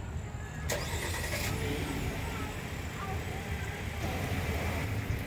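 Car engine idling with a steady low rumble, and a brief rush of noise about a second in.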